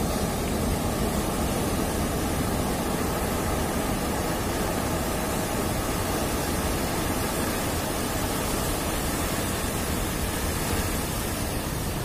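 Heavy ocean surf breaking and washing over a rocky shore: a steady, even rush of noise.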